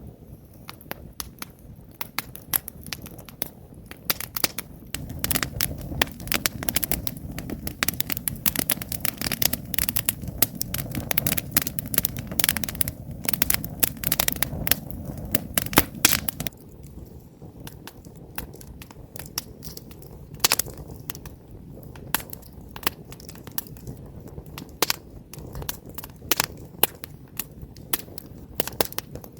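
Wood campfire burning, logs crackling and popping in quick irregular snaps. For about ten seconds in the middle the pops come thicker over a low rushing sound, which stops suddenly about two-thirds of the way through, leaving sparser crackles.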